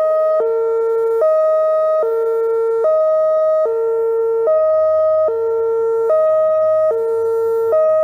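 Whelen OmniAlert OA4 electronic outdoor warning siren sounding a hi-lo tone. It alternates between two steady pitches, each held for a little under a second.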